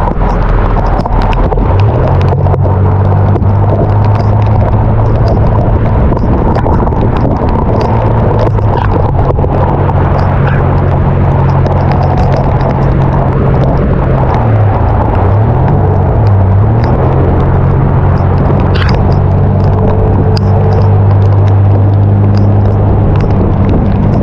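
A vehicle engine hum under loud, continuous rushing noise. The engine sets in about two seconds in and runs at a steady pitch, which dips and recovers twice about two thirds of the way through, as when slowing or shifting gear.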